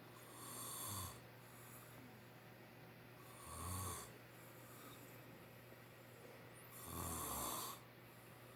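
A man snoring in his sleep: three snores on the in-breath, each about a second long and spaced roughly three seconds apart.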